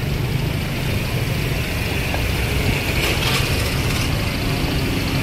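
Steady low rumble of vehicle engines, with a brief hiss about three seconds in and a steady hum joining near the end.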